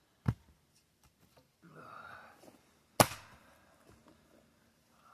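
Axe chopping firewood into chunks: two sharp strikes about three seconds apart, the second the louder, with a few light knocks between.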